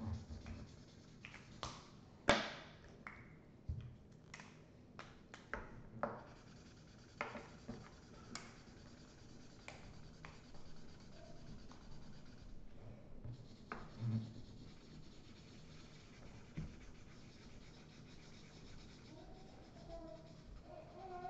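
Felt-tip markers drawing on paper on a table: short, scratchy strokes, frequent and sharp in the first half, then sparser and fainter.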